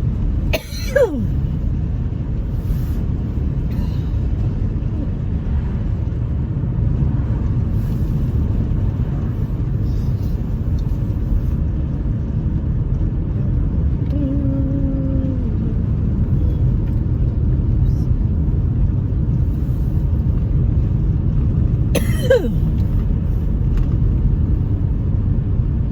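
Two sharp sneezes, one about a second in and one near the end, each a sudden burst that trails off in a falling pitch, over a steady low rumble.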